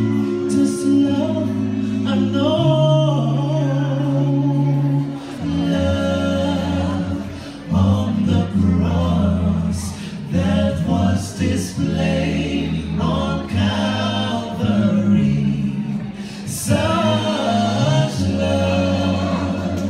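Male five-voice a cappella group singing into microphones: a deep sung bass line and held chords under a lead melody, with no instruments.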